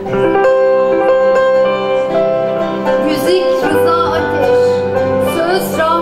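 Slow Turkish art music played by the ensemble: sustained instrumental notes, with sliding, wavering ornaments about halfway through and again near the end.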